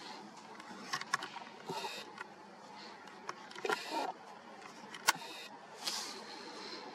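Handling noise on a camera: a few sharp clicks, the loudest about five seconds in, between short swishing noises.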